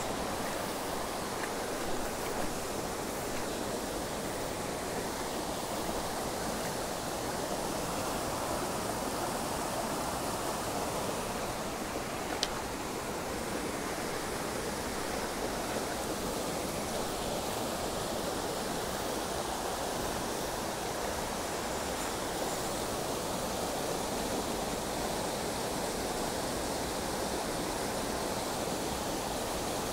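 Steady rushing of a small trout stream's water running over rocks, with one brief sharp click about twelve seconds in.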